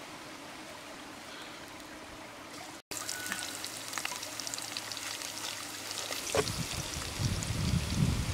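Steady low hiss, then, about three seconds in, chopped garlic sizzling in hot oil in a wok, with many fine crackles; a low rumble joins in from about six seconds in.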